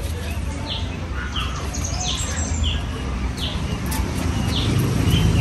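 A bird calling over and over, short falling chirps about one and a half a second, alternating a higher and a lower note, over a steady low rumble.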